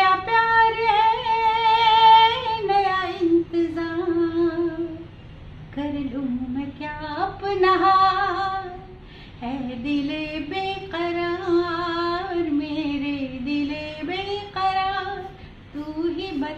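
A woman singing unaccompanied: a slow melodic phrase of long held notes with ornamented turns and slides, broken by a few short breaths between lines.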